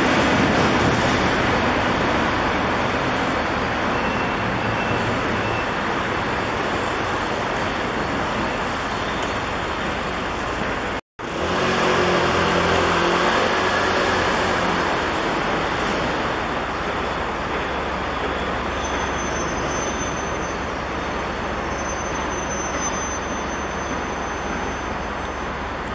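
Steady road-traffic noise, an even rumble and hiss of passing vehicles, with a brief dropout just over ten seconds in where the recording is cut.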